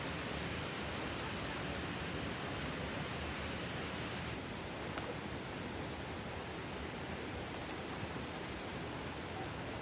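Steady rushing of a river flowing past, a constant even wash with a few faint clicks.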